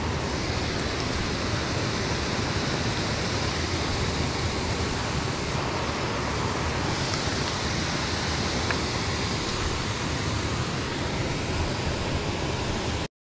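Water pouring over a low dam spillway into the creek pool below: a steady rushing that cuts off suddenly near the end.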